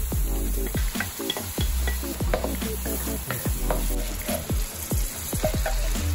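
Background music with a steady beat of about two kicks a second, over chopped onions sizzling in melted butter in an aluminium wok.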